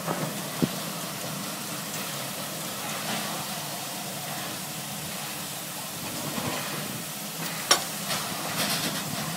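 Steam shovel working with a steady hiss of steam. A small knock comes about half a second in, a sharp knock about three-quarters of the way through, and a few lighter knocks follow near the end.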